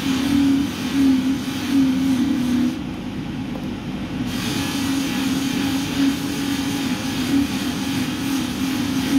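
Bench polishing machine with dust extraction running, its spinning cloth buff polishing a metal watch bracelet held against it: a steady motor hum with a wavering tone under a rushing hiss. The hiss drops away for about a second and a half around three seconds in.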